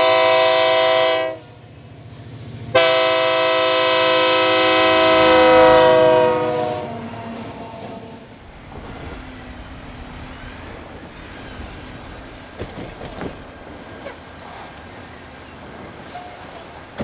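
Wisconsin & Southern diesel freight locomotive's horn: a short blast, then a long blast a couple of seconds later. After the horn the train rumbles past with scattered wheel clicks.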